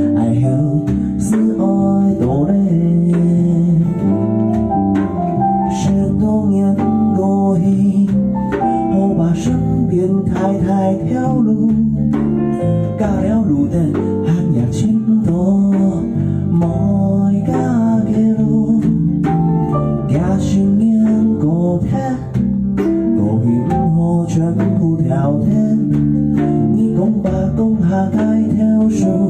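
Live band playing a song: strummed acoustic guitar with electric bass and electric guitar.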